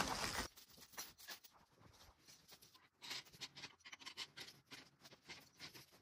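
Faint, scattered clinks and scrapes of a heavy steel chain being handled and hooked under a skid steer, after a brief louder rustle at the start.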